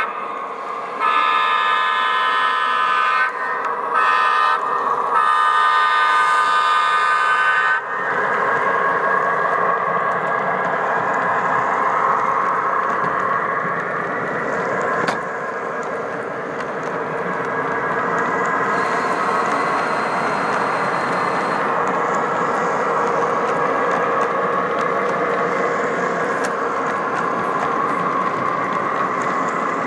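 O-gauge model diesel locomotive's sound-system horn blowing for a grade crossing: a long blast, a short one, then a long one ending about eight seconds in. After that comes the steady engine sound and the rolling rumble of a long double-stack container train passing on the track.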